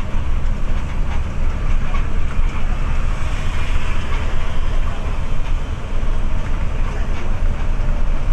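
Intercity coach heard from inside the cabin while under way: a steady low drone of the engine and road noise.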